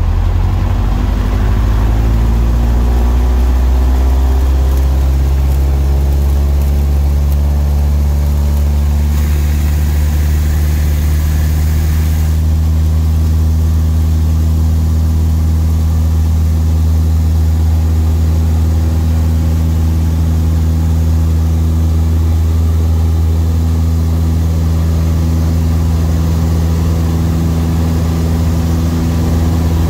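Piper Tri-Pacer's four-cylinder Lycoming engine and propeller, heard from inside the cabin, rising in pitch over the first two seconds or so as the throttle is opened to full power, then running loud and steady through the takeoff roll.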